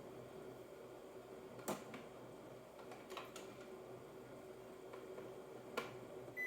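A few light plastic clicks and knocks from handling a matcha maker and its parts. The two sharpest come about a second and a half in and near the end, over a faint steady hum.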